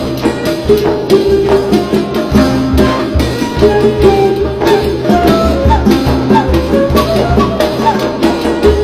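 Background music with a steady drum beat and a melody moving in short steps over it.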